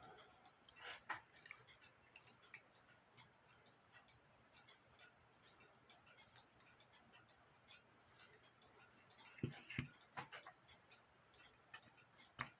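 Faint small clicks and taps of metal parts being handled as a music box comb is fitted onto a cuckoo clock music box movement, with a few louder knocks, one about a second in and several near the end.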